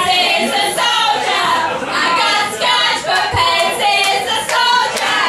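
A group of women singing together loudly.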